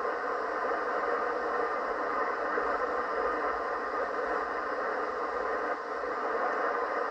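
Steady static hiss of HF band noise from a ham-radio transceiver's speaker, receiving in upper sideband on an empty frequency.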